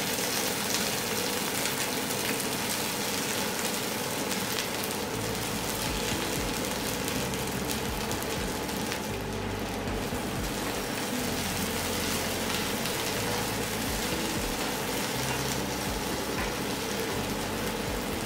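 Chopped okra sizzling steadily as it fries in hot coconut oil in a pan.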